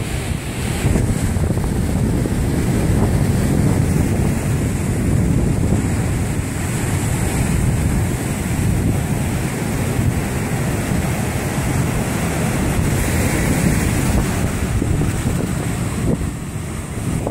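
Rough ocean surf breaking on the beach, with strong wind rumbling on the microphone; a steady, dense roar with no distinct breaks.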